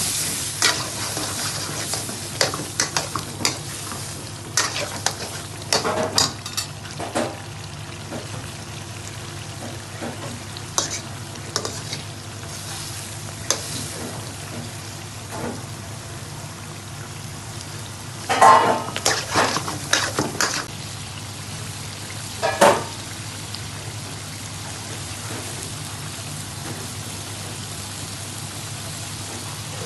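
Chicken bhuna frying and sizzling in a pan, stirred with a utensil that knocks and scrapes against the pan now and then, most often about two-thirds of the way through.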